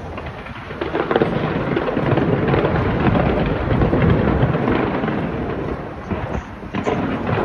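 Dense aerial fireworks barrage: continuous overlapping booms and crackling. It grows louder about a second in, with a brief lull and a fresh burst near the end.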